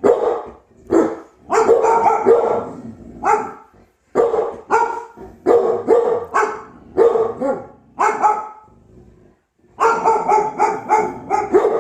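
A dog barking repeatedly in short, sharp barks, pausing for about a second some eight seconds in, then barking again in a faster run.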